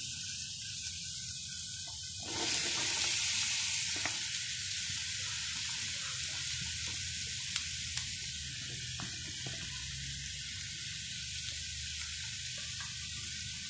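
Chopped onions going into hot coconut oil in a pan with green chillies, garlic and curry leaves, sizzling steadily; the sizzle swells briefly about two seconds in. A few sharp ticks come about halfway through.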